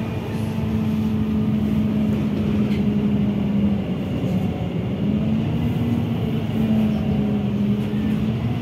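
Inside a NefAZ city bus on the move: steady running noise with a low humming drive tone that wavers in pitch as the bus slows and picks up speed.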